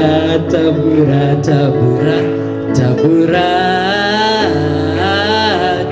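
Male a cappella group singing a gospel song in close harmony, the lower voices holding steady chords under a lead voice. About halfway through, the lead holds one long note that wavers, lasting almost to the end.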